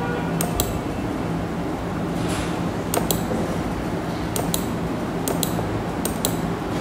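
Light sharp clicks in quick pairs, about five times, over a steady low electrical hum.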